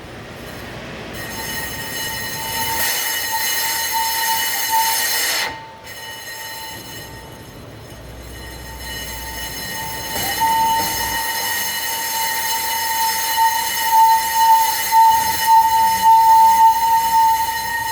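2018 BMW 530i brakes squealing after a brake pad change: a high, steady squeal that starts about a second in, cuts off about five seconds in, then glides back about ten seconds in and pulses louder near the end.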